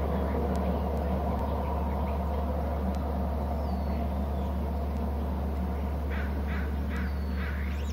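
A steady low hum with a light hiss, with a bird calling a quick series of five or six short, faint notes about six seconds in.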